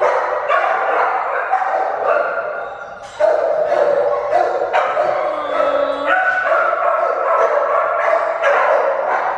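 Many shelter dogs barking at once in a kennel room with concrete-block walls: a loud, continuous din of overlapping barks and yips. It eases briefly about three seconds in, then comes back up.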